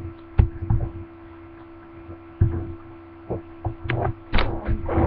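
Irregular thumps, knocks and brief rustles of handling noise on a webcam's built-in microphone as the computer is moved, over a steady electrical hum. The thumps come at uneven intervals, thickest and loudest in the last second or so.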